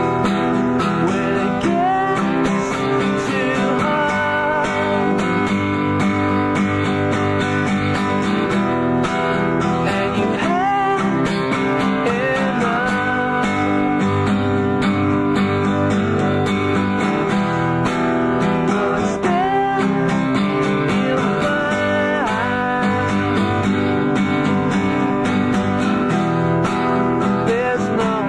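Guitar-based song playing steadily, with strummed acoustic guitar and a lead melody that bends in pitch every few seconds. It comes from a home tape recording.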